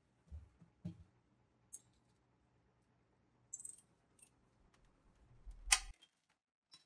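Polystyrene foam shipping box being handled: a few soft knocks in the first second, a brief high crackle about halfway through, and a louder scrape with a low thump shortly before the end.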